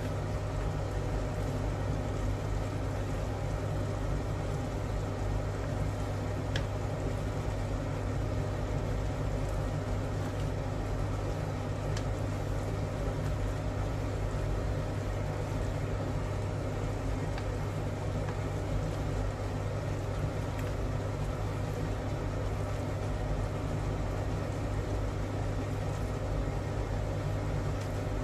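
Steady low electrical hum of a running kitchen appliance, under strawberry jam simmering in a stainless steel pot as a wooden spatula stirs it, with a few faint clicks.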